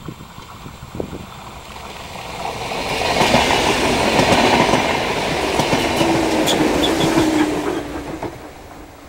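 Renfe Class 470 electric multiple unit passing close by on the rails. The rush of its wheels on the track swells from about two seconds in, holds loud for about five seconds with scattered clicks, and fades near the end. As the last cars go by, a low hum drops slightly in pitch.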